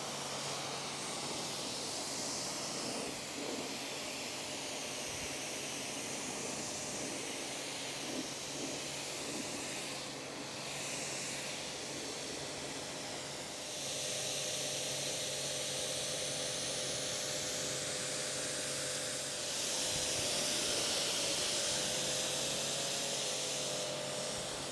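Pressure-washer lance spraying a jet of water onto a car's bodywork to rinse off foam: a steady hiss that gets louder about fourteen seconds in and again about twenty seconds in.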